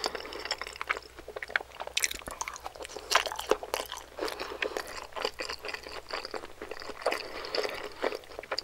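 A person chewing dumplings close to the microphone, a dense run of irregular wet smacks and clicks of mouth and food.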